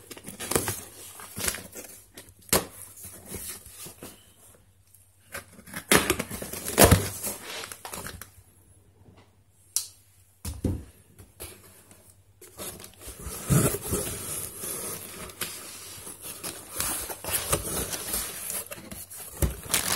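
A cardboard shipping box being cut and opened with scissors: irregular snips, scrapes and knocks of corrugated cardboard and its flaps, with pauses. In the last few seconds, plastic air-cushion packing crinkles.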